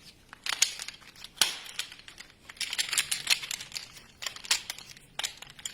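A folding camping chair being taken apart: its fabric seat rustles, and the frame rods click and scrape as the seat's corners are pulled off. The sounds come in irregular bursts of clicks and rustling.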